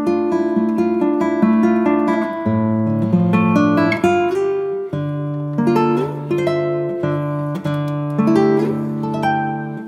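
Background music: an acoustic guitar playing a steady run of plucked notes over held bass notes.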